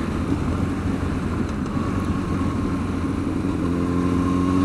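Honda CBR sport bike's engine running at a steady cruise under a rush of wind and road noise. About three-quarters of the way through, a steady engine note stands out more clearly and the sound grows slightly louder.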